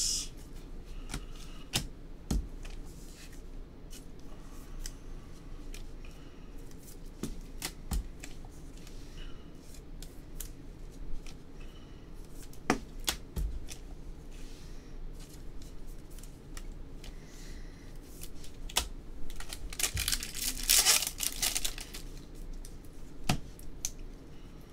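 Trading cards handled with gloved hands: scattered soft clicks and slides of card on card. About three quarters of the way through, a louder crinkling rustle lasts about two seconds.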